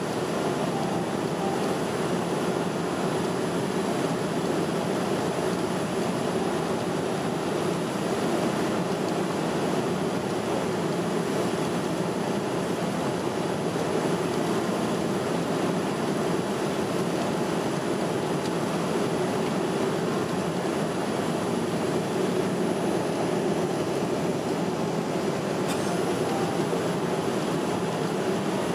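Steady cabin noise inside a Boeing 787-10 airliner on approach: an even rush of airflow and engine noise heard at the window seat over the wing.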